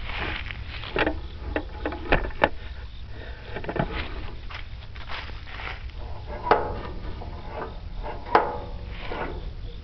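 Footsteps crunching over dry leaves and grass, with scattered sharp clicks and knocks from handling the metal frame of a chipper shredder, over a low steady rumble.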